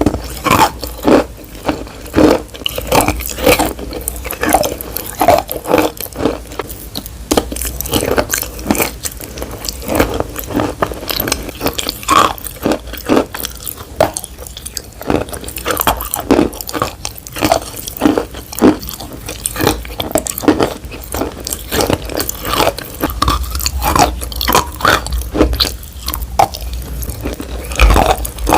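Close-miked wet crunching as something crunchy is bitten and chewed, with a rapid, irregular run of sharp crunches, several a second.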